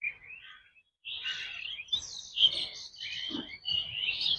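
Birds chirping, many short high calls overlapping one another.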